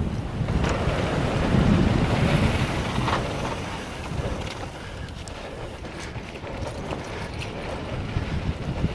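Wind buffeting the microphone during a mountain-bike descent, with a low rumble that is loudest about two seconds in and a few sharp clicks scattered through.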